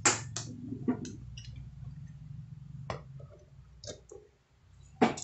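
About six sharp clicks and knocks from hands working a power outlet box and its switch to power up a CRT TV for testing, the loudest near the end, over a steady low hum.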